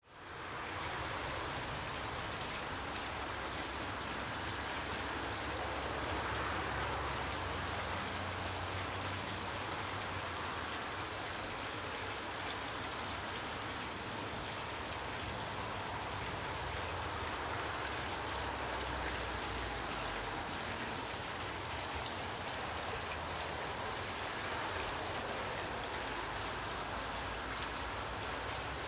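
Steady rushing outdoor ambience with no distinct events, fading in at the start. Two faint short high chirps come near the end.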